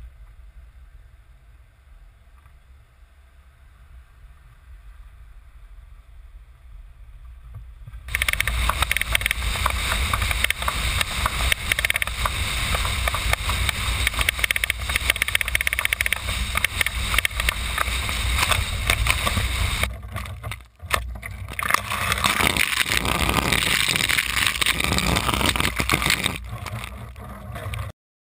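Wind rushing over a GoPro camera mounted on a kayak on a moving car's roof, with road rumble beneath. A faint low rumble at first, then a sudden jump to loud, steady wind noise about eight seconds in, which drops out briefly about two-thirds through and cuts off just before the end.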